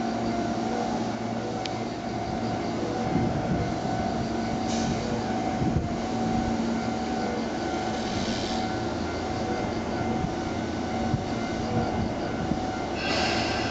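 Tobu 10030 series electric train pulling out of a station, its motors and wheels running with a steady hum. A few short higher-pitched rushes come through as it moves off.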